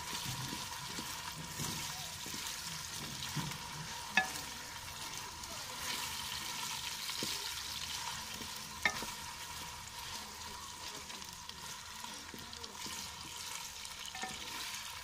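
Taro root slices frying in oil in a large aluminium pot, with a steady sizzle as a wooden spatula stirs and scrapes them. They are being fried to cook off their sliminess. Two sharp knocks stand out, about four and nine seconds in.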